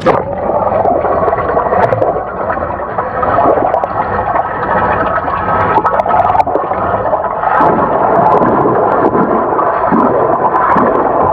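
Whisky 11 kayak's pedal-drive propeller churning water, heard underwater as a loud, muffled, steady rushing and bubbling, pedalled hard. It starts suddenly as the microphone goes under.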